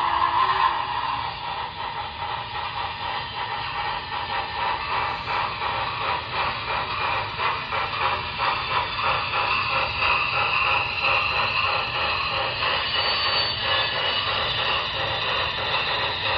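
Broadway Limited Imports Big Boy model steam locomotive's onboard speaker playing a steady, even rhythm of steam exhaust chuffs with hiss, the locomotive running at reduced speed.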